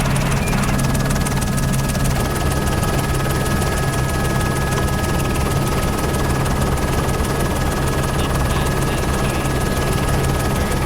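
Helicopter in flight heard from on board: a steady, unbroken drone of rotor and engine, with two faint steady high tones over it.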